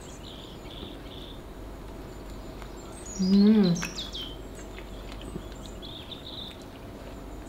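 A woman eating stretchy cheese-and-potato aligot with chicken, mostly quiet chewing, with one short murmur of her voice about three seconds in that rises then falls in pitch.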